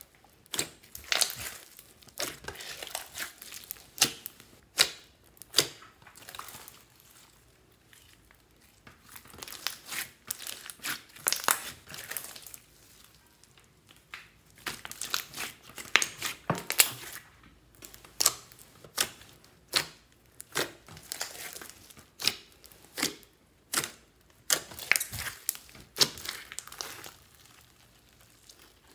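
Hands squeezing and stretching a large mass of mixed slime studded with foam beads, giving sticky crackling and popping in irregular bursts, with a few short pauses.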